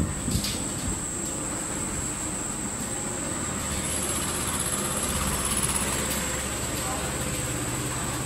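7-350 noodle-making machine line running, giving a steady machine hum with a thin high-pitched whine over it. There are a couple of short clicks near the start, and the low hum grows a little stronger about five seconds in.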